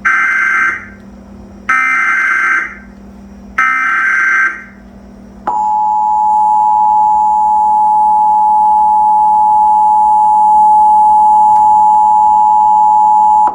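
Emergency Alert System header: three roughly one-second bursts of SAME digital data tones, then, about a second and a half after the last, the steady two-tone EAS attention signal, held for about eight seconds before it cuts off. It marks the start of a severe thunderstorm warning.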